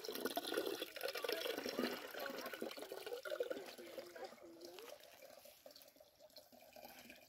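Water pouring from the neck of an animal-skin water bag into a plastic jug. The pour is loudest for the first few seconds and then tapers off as the stream thins.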